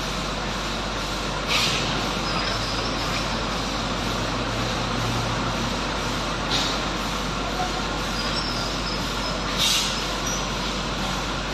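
MgO board production-line machinery running with a steady industrial din, broken by three short hisses of released compressed air: about a second and a half in, about halfway through, and near the end.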